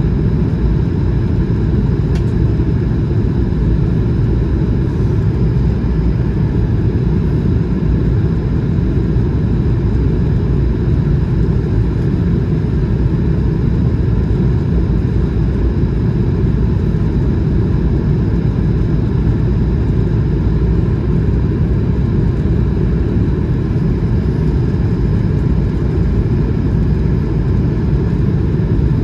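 Steady cabin noise aboard an Airbus A220-100 airliner in flight: a loud, even low rumble of its Pratt & Whitney PW1500G geared turbofan engines and the airflow past the fuselage, with a few faint steady tones above it.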